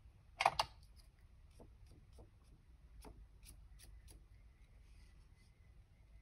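Faint clicks, taps and rustles of paper and small craft tools being handled on a desk, with one louder short rustle about half a second in.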